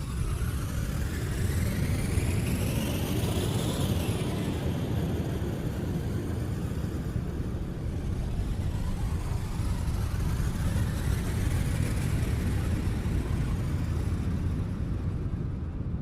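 Synthesized science-fiction spaceship sound effect: a steady low rumble with a rising sweep that peaks about four seconds in and drops away, then a second slower rise and fall later on.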